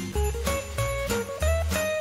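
Christmas music with jingle bells shaking on a steady beat over a bass line and a simple melody.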